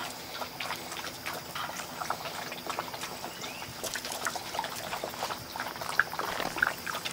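Brittany puppies sniffing and snuffling close to the microphone, with wet mouth and licking sounds, scattered small clicks and a few brief squeaks.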